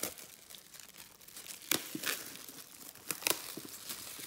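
Plastic shrink wrap being torn off a trading-card hobby box and crumpled in the hands: a run of irregular crinkling with a few sharper, louder crackles.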